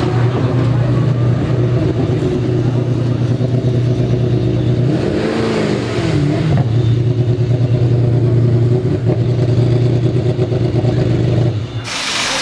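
Ford GT race car's V8 idling with a steady loud note, with one short blip of the throttle about halfway through. The engine shuts off near the end, followed at once by a short burst of hiss.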